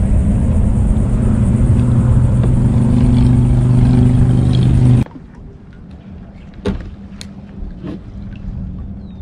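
Steady rumble of road traffic on the highway bridge overhead, with a low hum. It cuts off abruptly about five seconds in, leaving a much quieter background with a few faint clicks.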